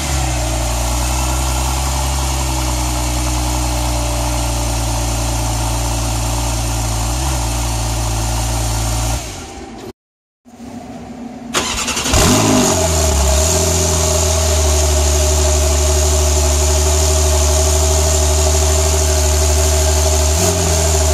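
Two Porsche engines on cold start, heard from the exhaust tips. The first is already running at a steady fast idle, gives one short blip partway through and stops after about nine seconds. After a brief gap the second catches with a rising flare, settles into a steady fast cold-start idle, and its pitch drops slightly near the end.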